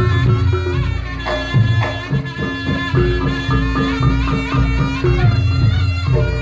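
Reog Ponorogo accompaniment music: a slompret (double-reed shawm) playing a wavering, ornamented melody over a steady held gong tone and repeated low drum strokes.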